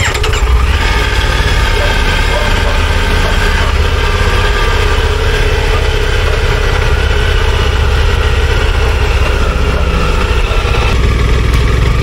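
Triumph Tiger 900 motorcycle's three-cylinder engine starting right at the beginning, then idling steadily. Near the end the low engine note grows louder as the bike moves off.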